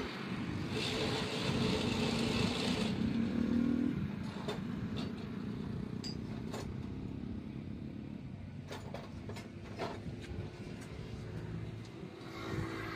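A motor vehicle engine running nearby with a steady hum, louder for a few seconds about a second in, with a few scattered clicks later on.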